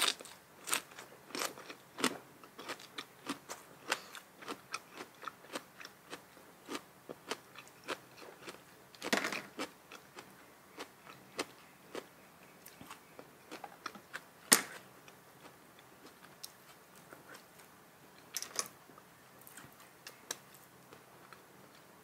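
A person chewing a mouthful of spicy seafood papaya salad close to the microphone: many small, irregular wet crunches, with a few louder crunching bites about nine seconds in, near fifteen seconds and near nineteen seconds.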